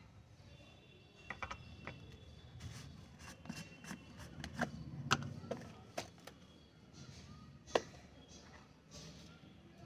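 Faint clicks, taps and rubbing from handling small containers while Epsom salt is measured out, with a few sharper knocks, the loudest about five seconds in and near eight seconds.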